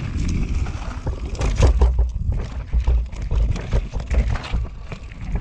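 Norco Range enduro mountain bike riding down a rocky dirt singletrack: tyres rolling over dirt and stones, with frequent clicks and rattles from the bike, under a steady low rumble of wind on the handlebar-mounted camera's microphone.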